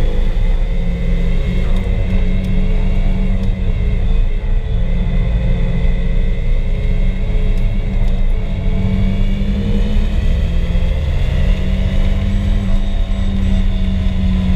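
Turbocharged SR20DET four-cylinder engine pulling at track speed, heard from inside the car's cabin over a steady low rumble, its note rising and falling gently as the revs change through the corners.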